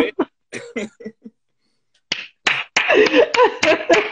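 Laughter: a few short laughs, a brief pause, then from about two seconds in hearty laughing with a quick run of hand claps or slaps, about four a second.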